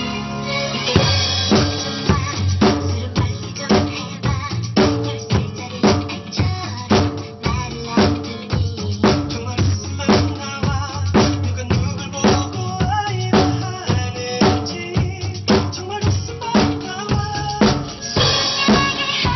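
Acoustic drum kit played in a steady pop groove, with bass drum, snare and rimshots on a beat of about two strikes a second, over a pop song backing track with a melody. Cymbal crashes come about a second in and again near the end.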